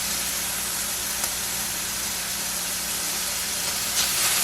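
Strips of steak sizzling steadily as they sear in oil in a hot skillet, with a small tick about a second in and the sizzle getting louder near the end.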